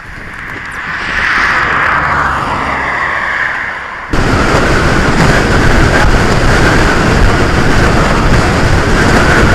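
Small motorcycle riding, with engine noise and wind rushing over a helmet camera. It builds over the first seconds, then turns abruptly to a louder, even roar about four seconds in.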